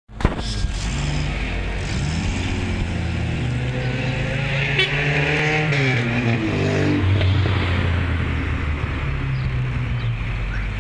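Suzuki Vitara's engine running as the 4x4 drives on a steep grassy slope. The revs rise about halfway through and drop back a second or two later.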